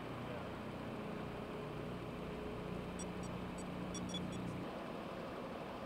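Boeing C-17 Globemaster III's four turbofan engines running at low power as it taxis after landing: a steady low hum.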